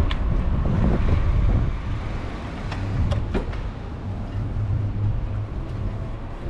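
Riding noise of a bicycle: a steady low rumble of wind on the microphone and tyres rolling over stone paving, with a few sharp clicks at the start and a cluster around three seconds in.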